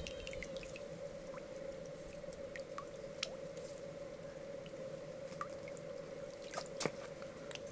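Wet squishing and dripping, with scattered small clicks and ticks, from a freshwater mussel being handled wet. A steady hum runs underneath.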